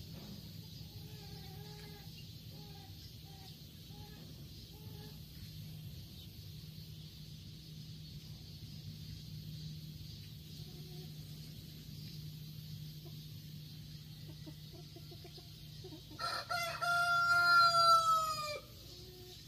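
A rooster crowing once, loud and drawn out for about two and a half seconds near the end, the call falling in pitch as it finishes. Earlier, a short run of faint clucking calls.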